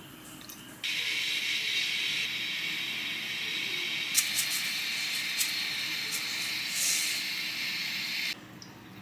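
A steady hiss that starts and stops abruptly, with a few light clicks and taps over it about halfway through.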